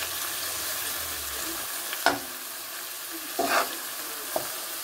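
Salmon in tomato stew sizzling in an aluminium pot while a metal spoon stirs it, with a few short scrapes or knocks of the spoon against the pot.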